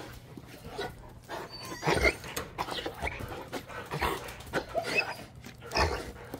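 Kangal shepherd dog whimpering and panting in a string of short, irregular bursts.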